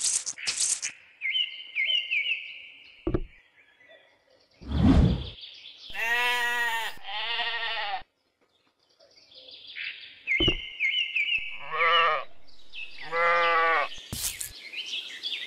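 Sheep bleating, four wavering bleats in two pairs. Around them come short high chirps, a few sharp clicks and a heavy low thump about five seconds in.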